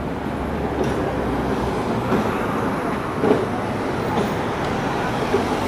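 Hong Kong double-decker electric tram running, a steady rumble with a few light clicks, amid street noise.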